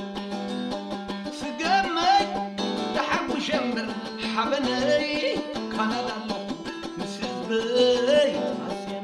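Guitar playing a plucked, repeating figure over a fast, even beat, with a man singing over it from about two seconds in until near the end.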